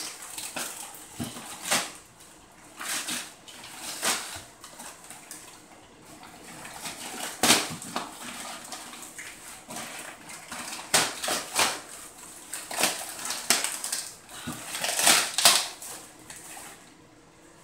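Gift-wrapping paper being ripped open and crumpled by hand, in short, irregular tears and rustles.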